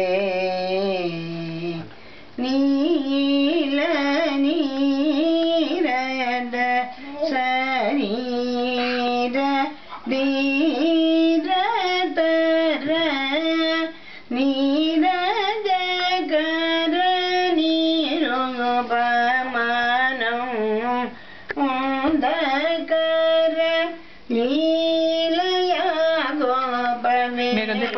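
A woman's voice singing a Carnatic-style Telugu song, in long phrases of held notes with sliding, ornamented pitch bends and brief pauses for breath between them.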